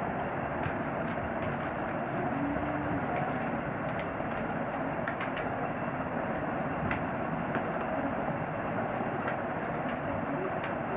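A steady rushing background noise, with faint scattered clicks and crinkles of plastic packaging being cut open.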